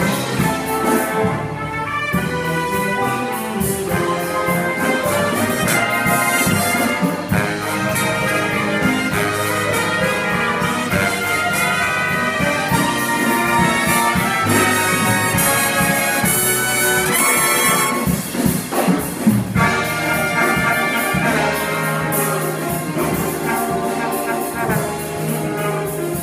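Big band jazz playing live: saxophones, trumpets and trombones over guitar, keyboard, bass and drums. About two-thirds of the way through, a short break of sharp drum hits stands out before the full band comes back in.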